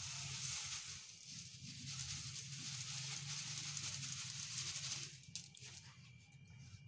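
Granulated sugar pouring out of a plastic bag onto cut raw mango pieces in a steel bowl: a steady granular hiss with the bag crinkling, tailing off about five seconds in.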